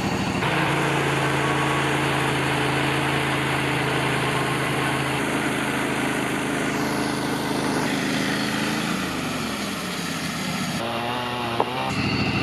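Portable bandsaw mill's engine running steadily while it saws a log. About nine seconds in, the engine speed falls away.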